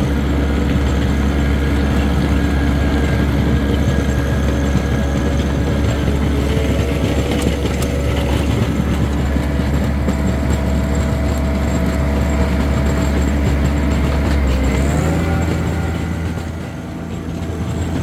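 Compact tractor engine running steadily as the tractor drives along scraping snow. About fifteen seconds in the engine note shifts, with a brief dip in loudness after.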